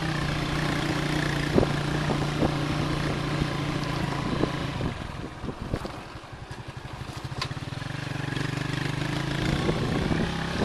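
Motorcycle taxi engine running under way with wind noise and the odd knock from the rough road. About five seconds in, the engine eases off to a low pulsing note, then picks up again near the end.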